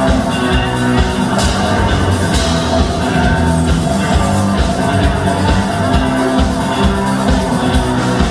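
Rock band playing an instrumental passage of the song: drum kit keeping a steady beat under sustained guitar and bass.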